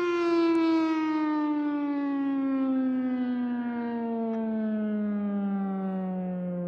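American Signal OM-120 outdoor warning siren winding down, one loud wailing tone falling slowly and steadily in pitch.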